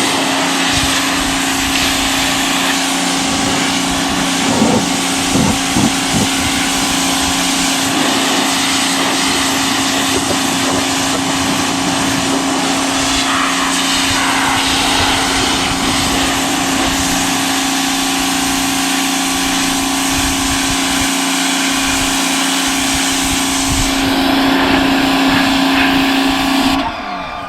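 Greenworks electric pressure washer running with the trigger held: a steady motor-and-pump hum under the hiss of the water spray. It gets a little louder about three seconds before the end, then cuts off suddenly.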